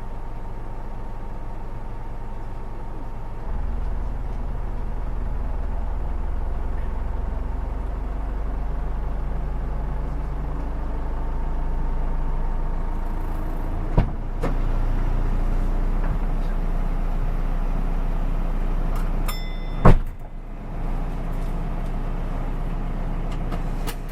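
Dual-mode vehicle's diesel engine idling steadily, its low hum stepping up a little after three seconds. A sharp click comes a bit past halfway, and a loud thump follows later, just after a brief tone.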